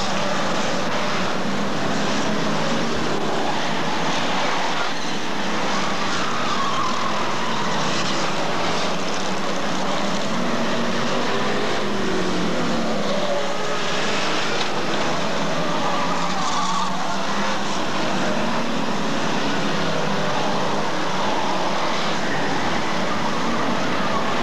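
Engines of several Hotstox oval racing cars running on the track, a steady mass of engine and tyre noise with engine notes rising and falling as the cars pass.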